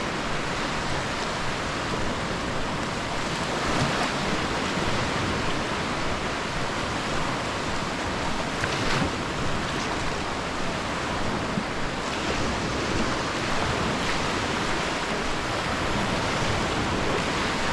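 Sea waves washing onto the shore in a steady, even rush of surf.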